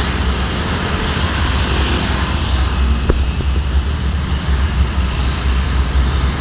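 Road traffic close by: motorcycles and cars passing, over a steady deep rumble, with one brief sharp sound about three seconds in.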